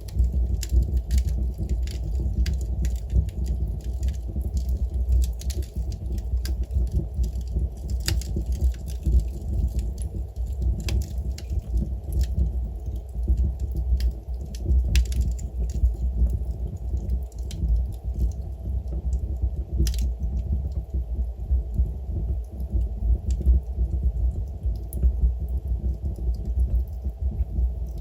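Wood fire burning in a fireplace, crackling with many irregular sharp pops over a steady low rumble. The pops are thicker in the first half, with one louder pop about twenty seconds in.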